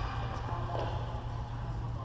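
A steady low hum under faint sounds of badminton play: a brief shoe squeak and a few light taps.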